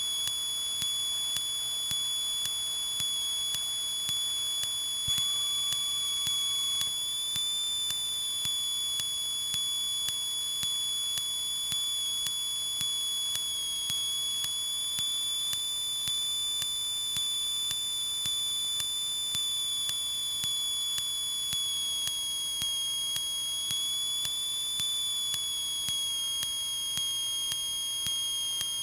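Steady high-pitched electrical whine in a Cessna 152's intercom audio, the alternator whine that follows engine speed, with a faint tick about once a second. Right at the end the whine slides down in pitch as the engine is throttled back for landing.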